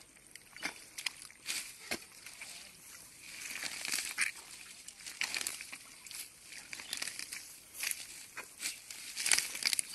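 Hands pulling and tearing wet grass and weeds and groping in shallow mud: an irregular run of rustles, rips and wet squelches.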